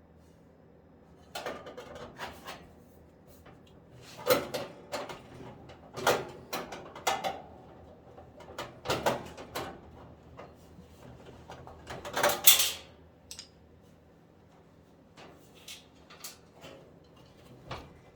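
Irregular knocks, clatters and scrapes of hard parts being handled, coming in bunches, the loudest about twelve seconds in, with a few lighter ticks near the end.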